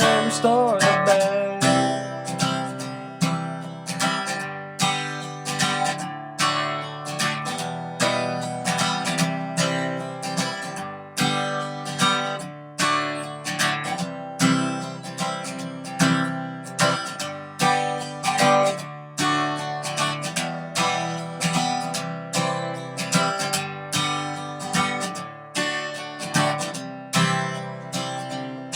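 Instrumental song music: acoustic guitar strumming a steady rhythm, with the last sung note of the chorus fading out right at the start.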